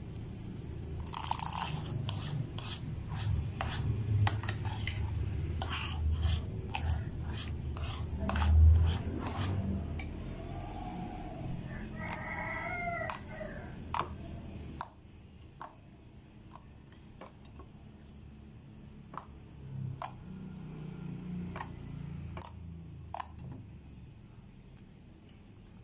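Metal spoon stirring thick, wet slime in a glass dish, clinking and scraping against the glass in many small ticks. About halfway through it gives way to quieter squishing and sticky handling as the slime is kneaded by hand.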